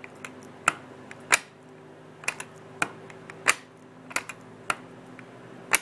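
Wico magneto on a 1961 Gravely Model LI firing across a test gap as it is turned over: a string of sharp snaps at uneven intervals. The snaps mean the cleaned and re-gapped points are now giving a strong spark.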